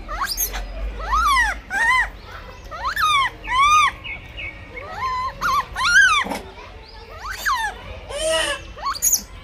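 A monkey giving a series of high calls, each one arching up and then down in pitch, about one a second.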